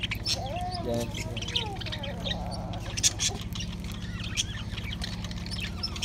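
A flock of budgerigars chirping and chattering, many short high chirps overlapping with a few wavering warbles, over a steady low hum.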